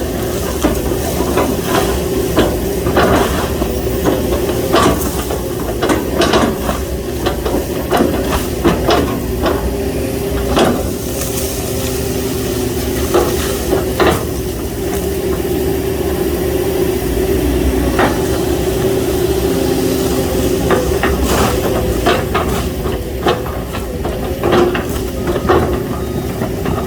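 Excavator's diesel engine running steadily under load, with a constant hydraulic whine and many irregular sharp knocks and clanks as the bucket chops felled oil palm trunks.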